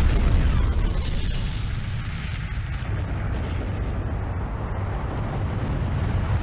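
A steady, deep rumbling roar with a hiss over it, strongest in the first second and then holding level.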